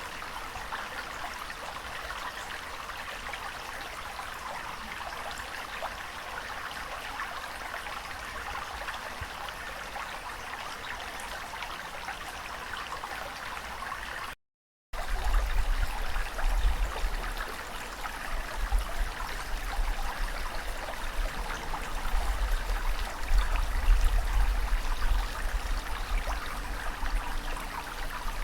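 Steady rushing water. About halfway through it cuts out completely for about half a second, then resumes with a deep rumble and a rising-and-falling surge.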